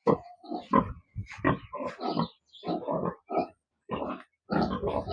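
Pigs (Hampshire crosses) grunting in their pen, a quick irregular series of short grunts.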